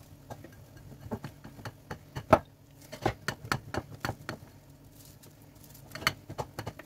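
Block of cheese rubbed up and down the coarse side of a metal box grater standing in a ceramic bowl: quick rasping strokes in runs, with short pauses, and one sharper knock a little after two seconds in.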